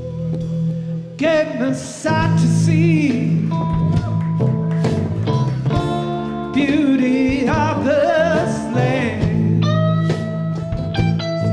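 Live blues band playing: a man singing lead in phrases with a wavering vibrato, over guitars and a steady low bass line.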